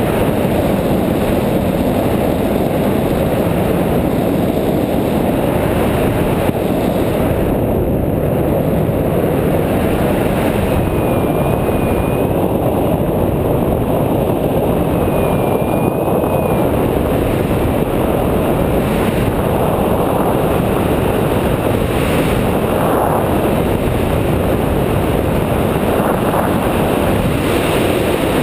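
Steady wind rushing over the microphone of a paraglider in flight. A faint, wavering high tone sounds twice near the middle.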